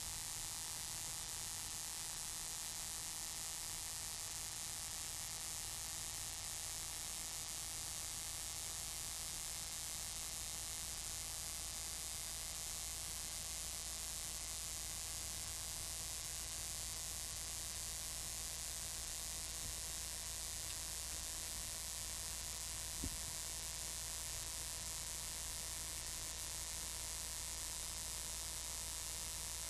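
Steady electrical hiss with a low hum running underneath, from a noisy audio mixer and microphone chain: the unwanted noise being chased down in the setup. A single short click comes about three-quarters of the way through.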